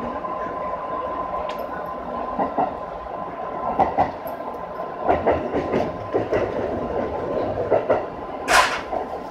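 Electric local train running, heard from just behind the driver's cab: a steady running rumble with the wheels clattering irregularly over rail joints and points, and one louder, sharper clank near the end. A faint steady high tone runs underneath.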